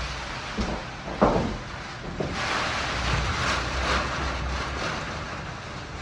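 Hurricane wind gusting over the microphone, with a sharp knock about a second in and a smaller one about two seconds in.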